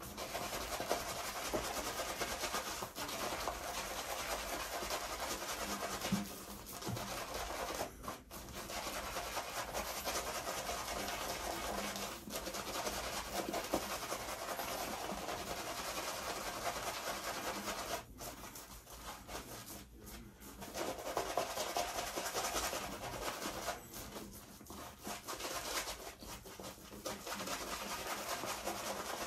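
Boar-bristle shaving brush scrubbing Proraso green shaving cream into a lather on two-day stubble: a continuous wet rubbing and scratching, with a few brief pauses about two-thirds of the way in.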